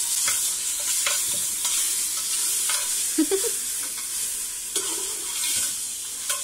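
Beef chunks sizzling in hot oil in a tall aluminium pot, stirred with a spoon that scrapes and clicks against the pot at intervals over a steady frying hiss.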